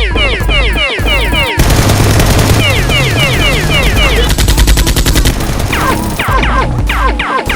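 Rapid bursts of dubbed gunfire sound effects for toy-blaster shots, with fast repeated falling zaps at the start and end and a dense run of automatic fire in the middle, over background music.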